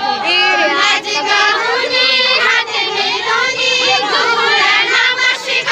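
A group of women and girls singing a Kumaoni chanchari folk song together, many voices at once with some talking mixed in.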